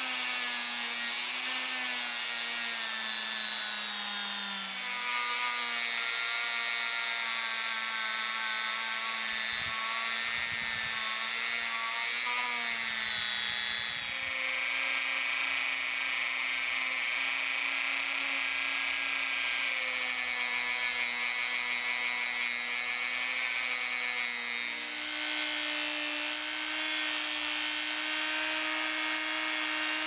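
Handheld rotary tool spinning a felt polishing wheel against a pocket knife's steel blades and plastic scales, buffing with metal polish. A steady motor whine that steps in pitch a few times as speed and load change.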